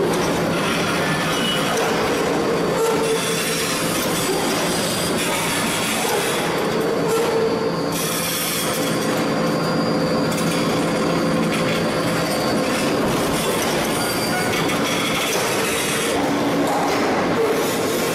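Large hydraulic forging press and its hydraulics running under load as it squeezes a red-hot steel forging: a steady industrial din with a whining tone that comes and goes several times.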